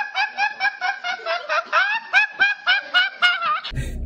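A boy's high-pitched snickering laugh: a quick run of short rising squeals at about four a second. It cuts off suddenly near the end and gives way to a low car-cabin rumble.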